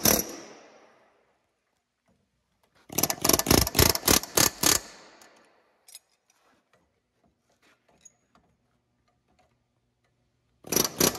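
Air hammer with a long punch bit hammering a seized rubber bushing out of a Toyota Tundra lower control arm. The hammer runs in short bursts: a brief one right at the start, a string of loud rapid bursts from about three to five seconds in, and another starting near the end, with faint clicks in between.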